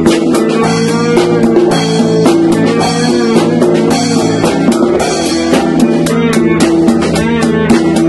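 A band playing loudly: a drum kit keeps a steady, busy beat with cymbals, under held guitar notes.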